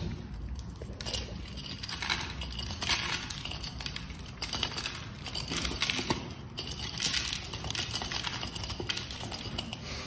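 Dry pet kibble rattling and clicking against a plastic bowl as a duck dabbles through it with its bill and a cat eats from it: a run of small irregular clicks and crunches.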